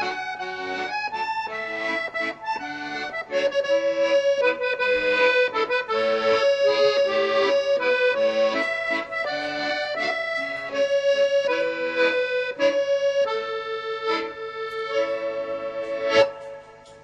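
Background music: an instrumental tune of quick, changing melody notes over a steady low drone, ending on a loud final chord near the end and then fading away.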